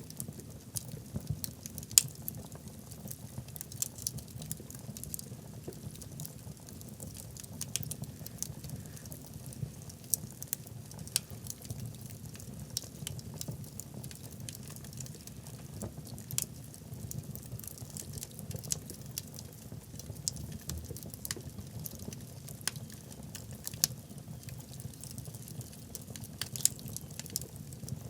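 Wood fire burning logs in a fireplace, crackling. Irregular sharp pops and snaps sound over a steady low rumble, with one louder pop about two seconds in.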